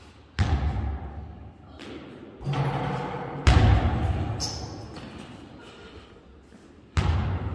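Basketball thudding off the hardwood floor, wall and backboard in an echoing gym: four hard thuds, about half a second, two and a half, three and a half and seven seconds in, the one at three and a half the loudest. A brief high squeak comes about four and a half seconds in.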